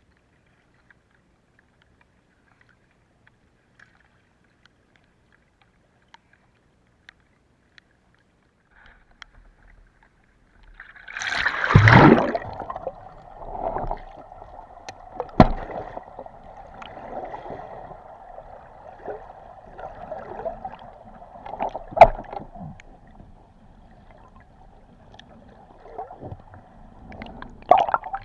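Near silence for about ten seconds, then a sudden splash-like burst of water noise, followed by steady rushing and gurgling water with scattered knocks and clicks.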